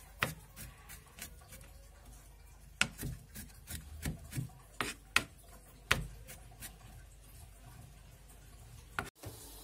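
Kitchen knife chopping garlic cloves on a plastic cutting board: irregular taps of the blade striking the board, some sharper than others, with a little scraping. It stops abruptly near the end.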